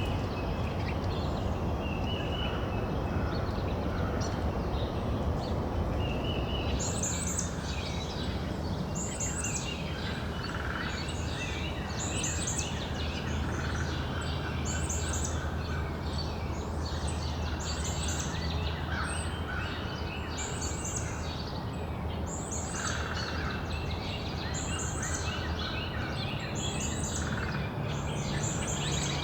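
Backyard songbirds singing and chirping, with one bird repeating a short high song phrase every second or two from about seven seconds in, over a steady low background rumble.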